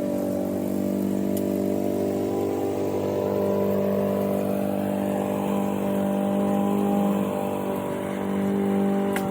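Honda engine of a Toro Recycler 22-inch push mower running steadily at a constant pitch.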